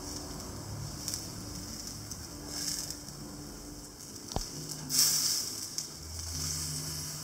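Crepe frying in a pan on a gas stove: a soft, steady sizzle, with a single sharp knock a little past four seconds in.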